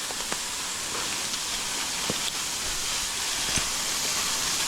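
Steady hiss of water falling and splashing at a small jungle waterfall, slowly growing louder, with a few faint knocks.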